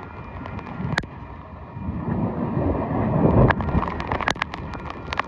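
Freight train of covered hopper cars rolling past: a steady rumble that swells about three seconds in, with sharp wheel clicks over the rail joints and wind buffeting the microphone.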